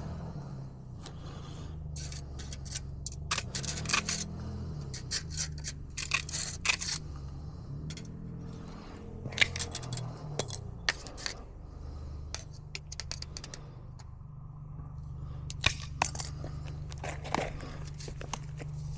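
Irregular metal clicks and scrapes from handling and fitting micro-mesh gutter guard panels into an aluminium gutter, over a steady low engine-like hum whose pitch wavers for a few seconds early on.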